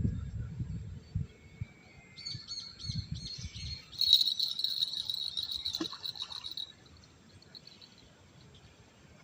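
Bird calling: a run of quick high notes about two seconds in, then a louder, longer high call that stops near seven seconds in. Low rumbling thumps sound under the first few seconds.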